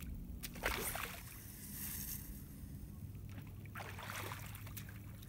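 A long cast with a Daiwa Seagate 35 conventional reel on a 9.5-foot rod: a sharp whoosh about a second in, then a hissing whir as the spool spins and line pays out, and a second swish near four seconds. The cast runs clean, without a backlash.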